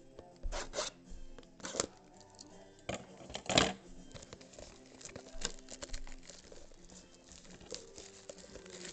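Wrapping being torn and crinkled off a Topps Chrome baseball card box in several short rips, the loudest about three and a half seconds in, over quiet background music.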